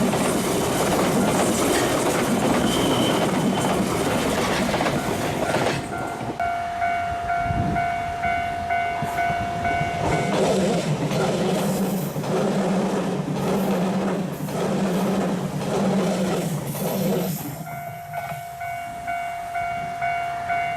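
Electric commuter train running past on the Chikuhi Line, a loud rush of wheels and running gear at first, then rhythmic clatter over rail joints with a low steady hum. A steady electronic ringing tone with a pulsing beat sounds from about six to ten seconds in, and again near the end.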